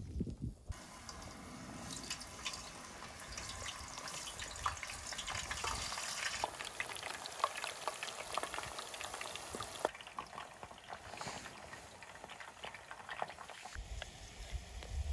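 Potato chips deep-frying in hot oil in a wire basket: a steady crackling sizzle full of sharp pops. After about ten seconds it becomes a quieter sizzle, and near the end a low rumble comes in.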